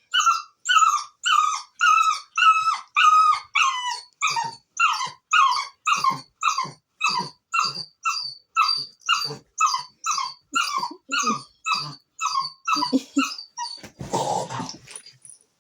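Puppy crying in a long run of short, high-pitched yelping whines, about two a second, with a brief noise near the end.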